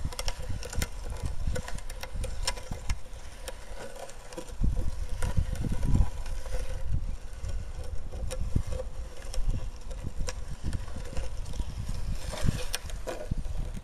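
Wind buffeting the microphone in irregular low gusts, strongest about five seconds in, with scattered clicks and knocks from handling and a faint steady tone underneath.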